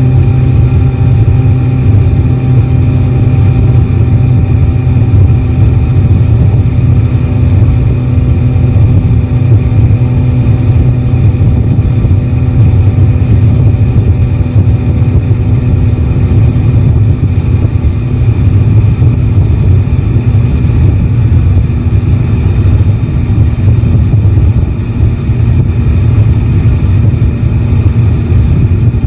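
Yamaha Tracer 9 GT's inline three-cylinder engine running at a steady speed under way, heard from the bike with wind and road rumble. The engine note holds nearly constant, with no big revs or gear changes.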